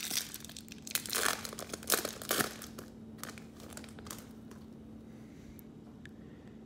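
Foil trading-card pack wrapper crinkling and tearing as it is opened, in a cluster of rustles over the first two and a half seconds, then only faint rustles.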